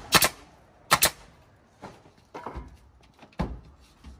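Pneumatic nail gun firing nails into wooden wall boards: sharp shots about a second apart, the first two the loudest.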